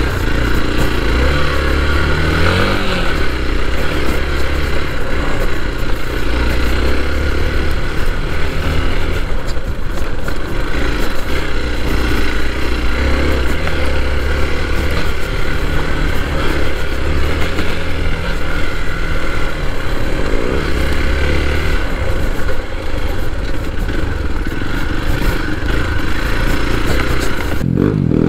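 Hero Xpulse 200 4V motorcycle's single-cylinder engine running under way off-road. The engine pitch rises and falls with the throttle, over clatter and scraping from the rough trail.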